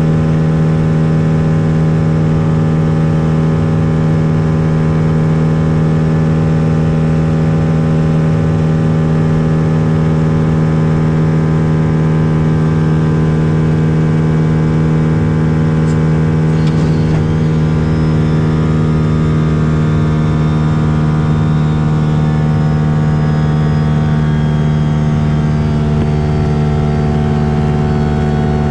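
Lake Buccaneer amphibian's 200 hp four-cylinder pusher engine and propeller droning steadily in flight, with a faint click a little past halfway.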